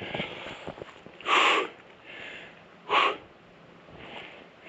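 A man breathing hard through the mouth: two loud, sharp exhalations about a second and a half apart, with quieter breaths between them, as he braces himself to jump from a rock into the water.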